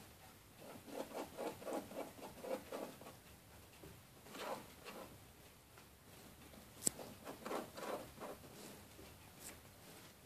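Pet hedgehog crunching dry kibble, in quick runs of crunches with short pauses between, and one sharp click about seven seconds in.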